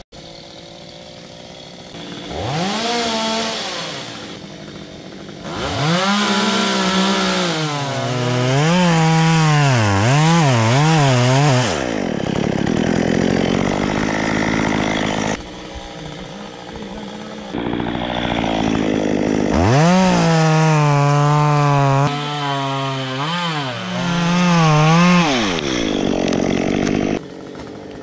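Stihl two-stroke chainsaw revving up and cutting through eucalyptus wood, its engine pitch dipping and recovering again and again as the chain bites under load. It comes in several stretches that break off abruptly.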